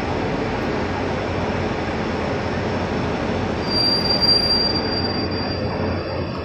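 Indian Railways passenger coaches rolling past a platform, a steady rumble of wheels on rail. About four seconds in, a high-pitched wheel squeal rises over the rumble for a second or two.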